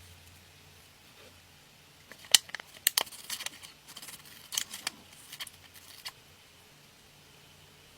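A quick run of sharp clicks and ticks over a faint low hum, strongest just after the first couple of seconds and dying away before the end.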